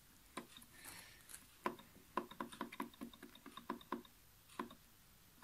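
Faint, quick clicks from the control knob of a Weldkar WK-TIG 1660 DC/HF Pulse TIG welder being turned and pressed to step through its settings. There are about twenty clicks in uneven runs, and they stop near the end.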